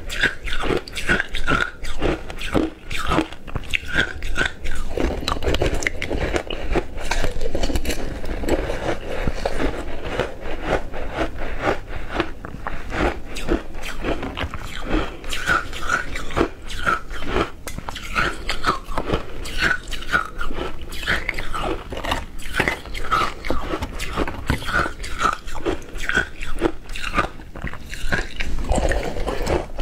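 Close-miked crunching and chewing of frozen ice: a dense, irregular run of crisp bites and crackles as the ice is broken up in the mouth.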